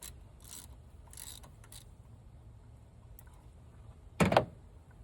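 Ratchet and 19 mm socket working the failed engine coolant temperature sensor out of the engine, a few faint ratcheting strokes, then one loud short metallic clunk about four seconds in.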